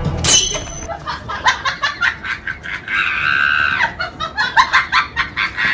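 Comedy sound effects of laughing and screaming. A sudden high shriek comes at the start, then rapid bursts of laughter, with a held scream about three seconds in and more laughter after it.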